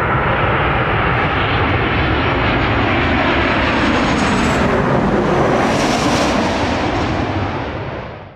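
Jet engines of a Boeing 737 passing low overhead on short final: a loud, steady rush of jet noise that turns brighter and hissier about halfway through as the aircraft passes, then dies away near the end.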